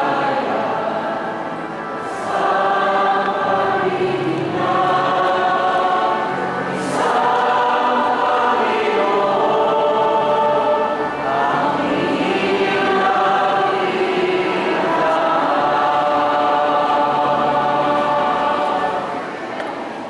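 A choir singing in long held phrases, several voices together, pausing briefly between lines.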